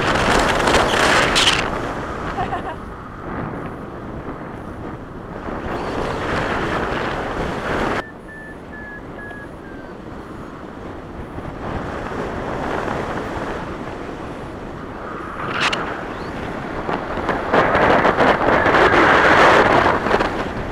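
Rushing airflow buffeting the microphone of a camera carried on a paraglider in flight, swelling and easing in gusts, loudest near the start and again near the end. The noise drops suddenly about eight seconds in.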